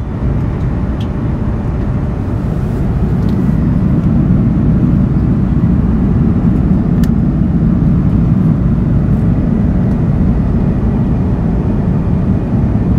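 Steady airliner cabin noise in flight, the low rumble of engines and airflow heard from inside the cabin at a window seat, with a few faint ticks over it.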